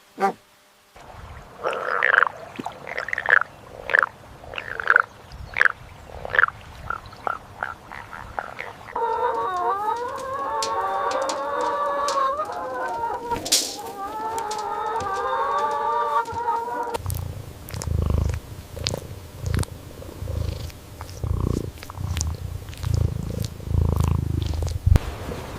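A run of farm-animal sounds: short, separate clucking calls of a chicken for the first several seconds, then a long wavering pitched call from about nine seconds in, then low, irregular grunting from about seventeen seconds.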